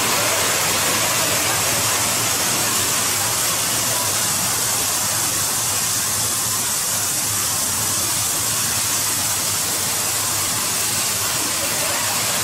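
A shallow rocky river rushing steadily over stones in small rapids.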